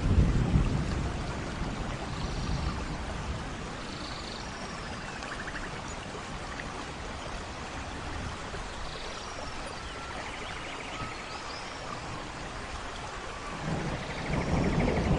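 Steady rain falling in a forest, with a thunder rumble at the start that fades over a couple of seconds and another rumble building near the end. A few short high chirps and trills sound faintly through the rain.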